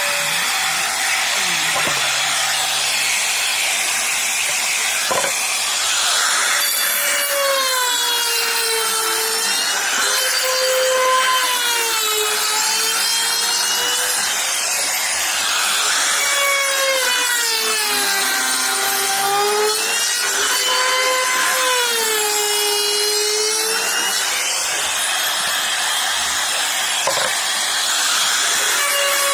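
Electric power tool working wood, with the steady noise of the cut throughout. From about six seconds in, the motor's whine repeatedly drops in pitch and recovers every couple of seconds as the tool is pushed into the wood.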